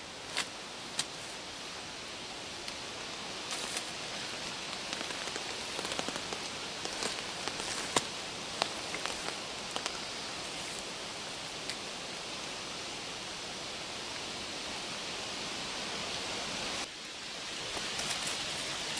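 Dry wooden sticks being laid down and set crosswise by hand, giving scattered sharp clicks and knocks of wood on wood, the loudest about eight seconds in. Under them runs a steady outdoor rushing hiss.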